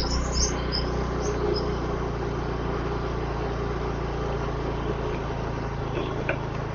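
Motorcycle engine running steadily, with a few bird chirps in the first second or so.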